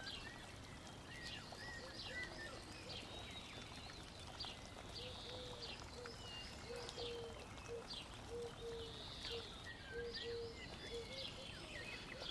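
Faint birdsong ambience: many short chirps and whistles, with a run of low, short repeated notes, two or three a second, from about five to eleven seconds in, over a faint steady hiss.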